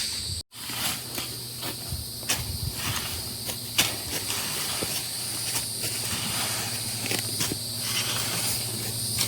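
Insects chirring steadily in several high, even tones, over a low steady hum, with scattered clicks and rustles. The sound cuts out for an instant about half a second in.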